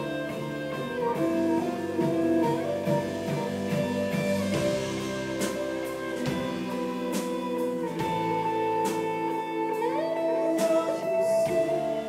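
Live band playing an instrumental passage: electric guitar holding sustained notes over drums, with one guitar note bent upward about ten seconds in.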